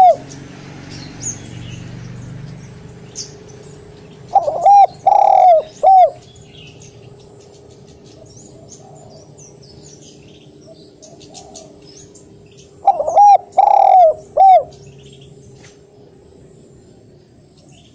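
Spotted dove cooing: two phrases of about four coos each, the third coo the longest, some eight seconds apart, with the last coo of a previous phrase right at the start.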